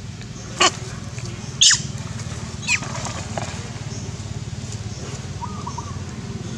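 Three short, sharp animal calls, each sweeping steeply downward in pitch, about a second apart in the first three seconds, over a steady low rumble.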